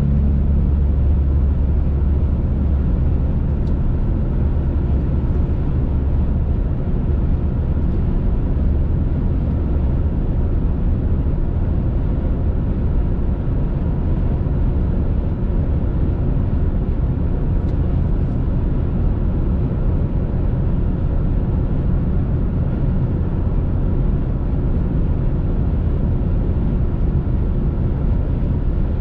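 Steady road and engine noise inside a car's cabin at highway speed, mostly a low rumble; the rumble is heavier for the first ten seconds or so, then settles.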